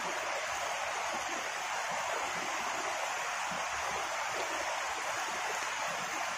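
Heavy rain falling, a steady, even hiss with no let-up.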